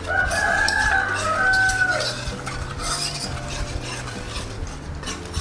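Wire whisk stirring a thin coconut-milk and hunkwe-flour batter in a metal saucepan, with light clicks against the pan. A rooster crows once, for about two seconds, at the start.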